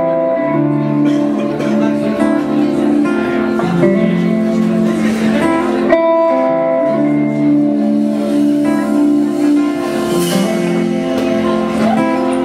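Band playing the instrumental opening of a song, led by a strummed acoustic guitar, before the vocals come in.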